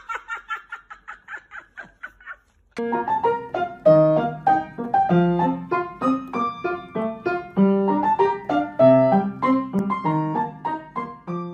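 Piano music, a melody of short separate notes, starting about three seconds in after a brief pause. Before it, a fast pulsing sound fades out over the first two seconds.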